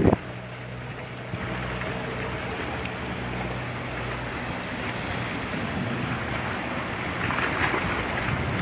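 Passenger catamaran ferry's engines running with a steady low hum as it pulls away, over the churning hiss of its wake and wind on the microphone; the wash grows a little louder near the end.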